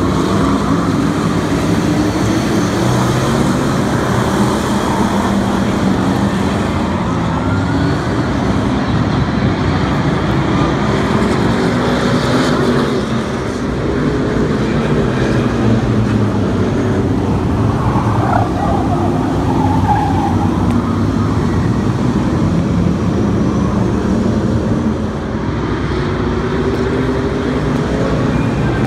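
Several figure-8 race cars' engines running together around the track, pitch rising and falling as the cars rev and pass.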